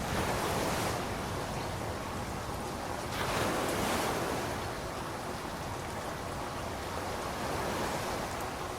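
Steady rain falling, its hiss swelling briefly near the start and again about three seconds in.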